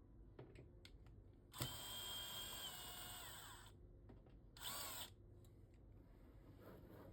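Handheld power tool's motor run for about two seconds from roughly a second and a half in, its whine falling as it winds down, then a short half-second trigger pull about five seconds in.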